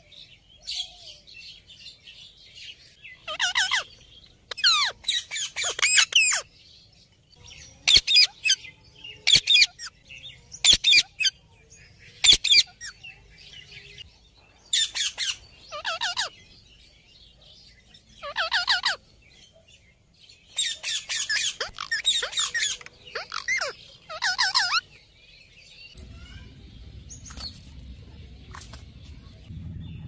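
Indian ringneck parakeets giving repeated high-pitched calls in short bursts, with gaps of a second or more between them. A low steady hum comes in near the end.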